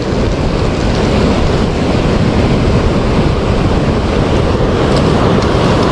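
Ocean surf breaking and washing up a pebble beach: a loud, steady rush of water.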